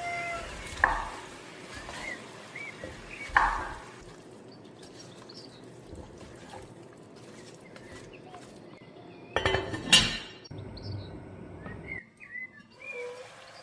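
Cookware and utensils clinking: two sharp clinks in the first few seconds, then a louder clatter about ten seconds in.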